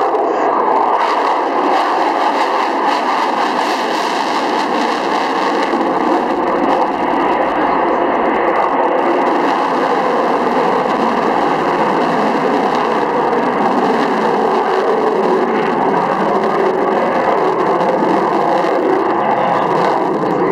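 F-16 fighter jet's engine heard from the ground as a loud, steady rushing noise as the jet flies aerobatic manoeuvres overhead.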